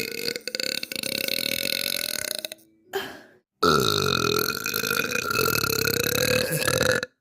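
A girl burping: a long, drawn-out burp stops about two and a half seconds in, a short burp follows, then another long burp of about three and a half seconds.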